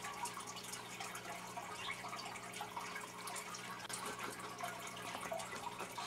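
Faint room tone: a steady low hum with soft, scattered ticks and rustles.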